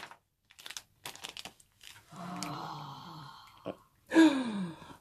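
Foil blind-bag packet crinkling and crackling as it is opened and the toy pulled out, in short scattered bursts over the first couple of seconds. Then a person's voice is heard, ending in a falling exclamation near the end.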